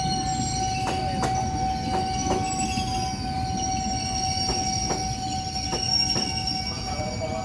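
A train rolling over a level crossing: its wheels clack over the rail joints in pairs every second or so and squeal in a high pitch, with a rumble beneath. The crossing alarm keeps up a steady tone throughout.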